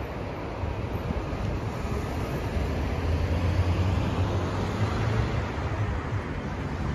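Steady road and traffic noise of travel along a city street, a low rumble that grows somewhat louder about three seconds in.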